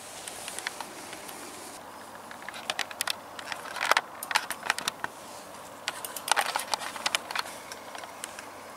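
Canyon Strive mountain bike being wheeled up a dirt jump: irregular bursts of sharp clicks and light metallic rattling from the bike, starting a couple of seconds in and coming in three or four clusters.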